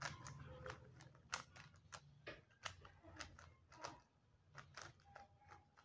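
A 3x3 Rubik's-type speedcube being scrambled by hand: faint, irregular plastic clicks as its layers are turned, a few per second.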